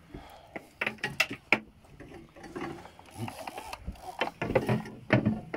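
Fishing reel ratchet clicking in short, irregular bursts while a large skate is played on a heavy boat rod.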